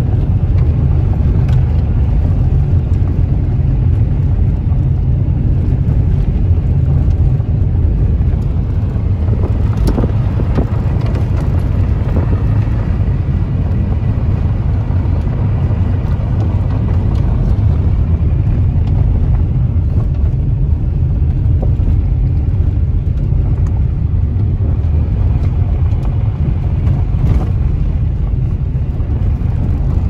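Car driving on a gravel road, heard from inside the cabin: a steady low rumble of engine and tyres on loose gravel, with a few sharp ticks.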